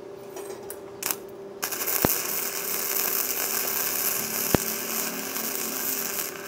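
Easymix 201 MIG welder's arc crackling as a bead is run on thin sheet metal at turned-down current. Two brief sputters about a second in, then a steady crackle that stops just before the end, with two sharp pops along the way.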